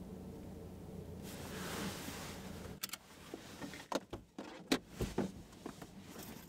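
Inside a car cabin, a steady low hum of the car with road noise swelling, cutting off sharply about three seconds in. Then a run of sharp clicks and knocks, the loudest near the end, from the car door being opened as the passenger gets out.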